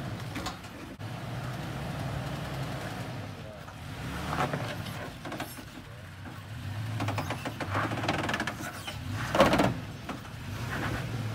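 Toyota Tacoma pickup's engine running at low revs as it crawls over boulders, with tyres crunching and grinding on rock and a loud clunk near the end.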